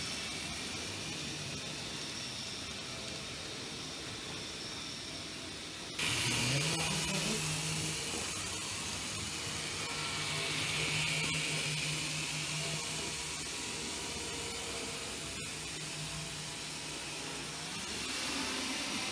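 Z-gauge model train running on the layout: a steady hiss from its small motor and wheels on the rails. About six seconds in the sound gets suddenly louder and a low steady hum comes in.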